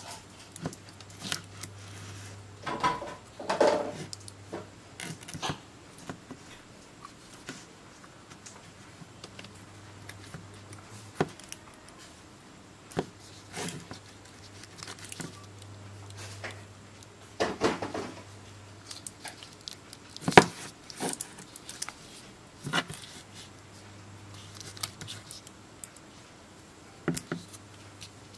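Handling noise from lithium-ion polymer pouch batteries being turned over in the hands and set down on a wooden table: scattered light clicks, knocks and crinkles of the foil pouches, with a few louder bursts of crinkling. A faint steady low hum runs underneath.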